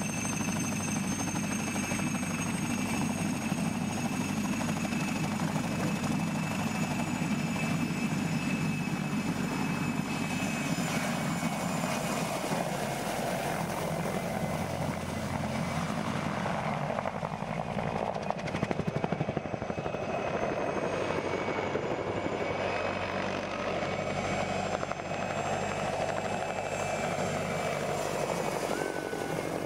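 Mi-2 agricultural helicopter's twin turboshaft engines whining steadily under the beat of the main rotor as it lifts off and flies low past. The high whine fades about halfway through as it moves away.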